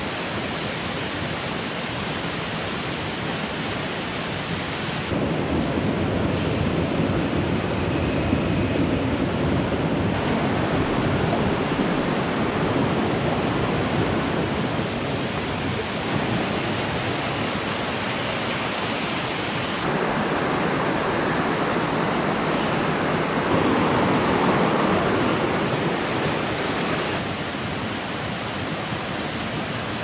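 Rushing water of a waterfall and rocky stream: a steady, loud rush of noise that shifts abruptly in tone and level several times.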